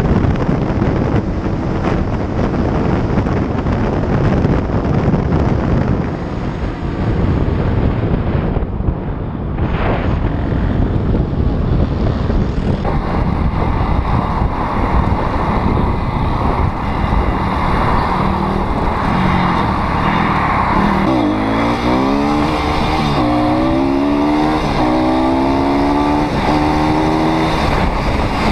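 A pit bike's small single-cylinder four-stroke engine running on the move, with heavy wind rush on the microphone. In the second half the revs climb and fall back several times as the bike accelerates.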